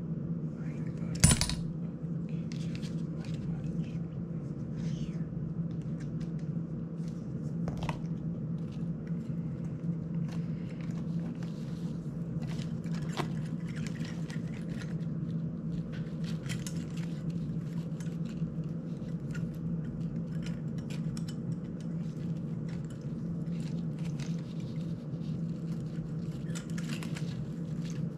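Plastic duct guards and small parts of a GEPRC Cinelog 35 FPV drone being handled and fitted together on a workbench: scattered light clicks and clinks, with one sharper click about a second in, over a steady low hum.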